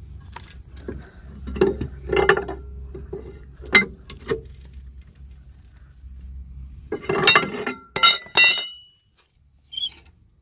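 Steel pry bar and tools clinking and knocking against the metal of a car's front suspension around the lower arm and hub. There are several separate knocks, then a quick run of clinks about seven seconds in, the last of which ring briefly.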